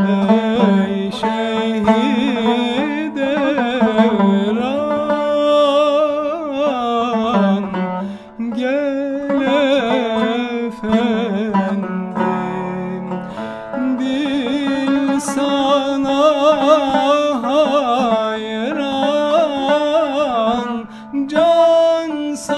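A male voice singing a Turkish classical şarkı in makam hüzzam, with ornamented, wavering melodic lines, accompanied by a plucked tanbur.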